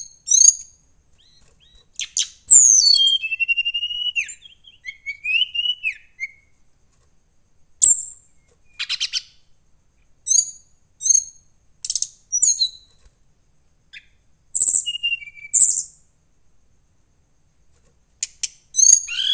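Brown-chested jungle flycatcher (SRDC) singing: bursts of high, varied whistles, fast trills, rising and falling glides and sharp chips, separated by short pauses.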